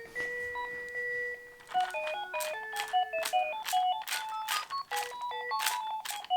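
Battery-powered plastic musical frog toy playing its electronic melody: a run of beeping notes stepping up and down, with short hissy drum-like hits between them. The toy is working again after repair.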